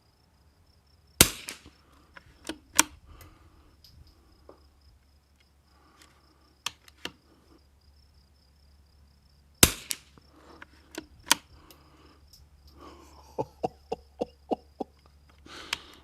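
Two .22 LR rimfire shots from a Remington 40XB target rifle, about eight seconds apart, each a single sharp crack. Smaller metallic clicks follow each shot.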